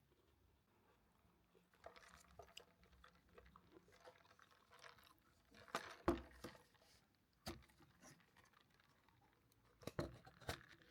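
Faint, close chewing and crunching with a few sharp crackles and clicks, loudest about six seconds in and again near the end.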